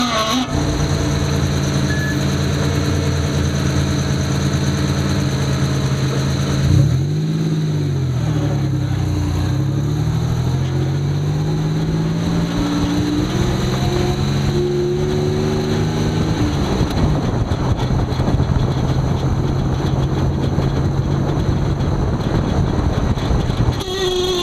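Drivetrain of a 1989 Toyota pickup running in four-wheel drive, heard from beneath the truck at the transmission and front driveshaft: a steady low hum that sags in pitch about seven seconds in, then rises again as the truck speeds back up. This is the 4WD front-axle noise the owner is tracking down.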